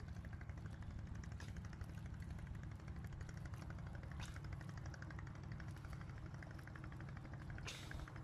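Steady low hum of an idling engine, most likely a boat motor, with a few faint short ticks over it.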